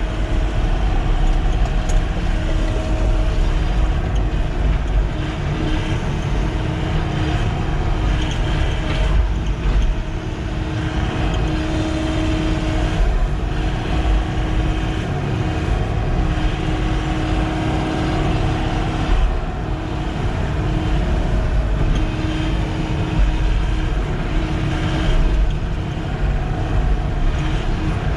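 Sany SY-95 excavator's diesel engine running steadily under work, with a hum that strengthens and fades at times as the hydraulics are worked, and a few knocks.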